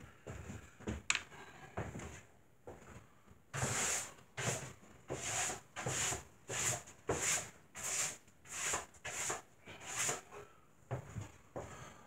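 Broom sweeping a plywood floor: a run of brisk, evenly paced strokes, about three every two seconds, starting a few seconds in and stopping near the end, with a few light knocks before it.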